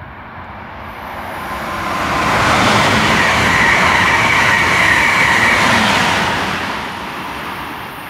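Amtrak Acela Express high-speed trainset passing close by at speed without stopping: a rush of wheels on rail and air that builds, stays loud for about three and a half seconds with a steady high whine, then fades as the train goes off.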